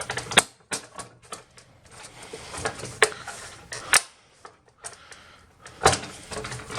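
Plastic snap-fit clips of an all-in-one PC's rear cover clicking loose as the cover is pried off by hand. Irregular sharp plastic clicks and snaps, a handful louder than the rest, with rubbing and handling of the casing between them.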